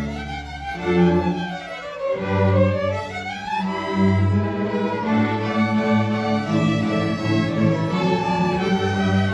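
Student string orchestra of violins and cellos playing a piece together: sustained bowed notes with a melody moving above them. The first two seconds are softer, with a quicker run of notes sweeping up and down, before the ensemble settles into fuller sustained playing.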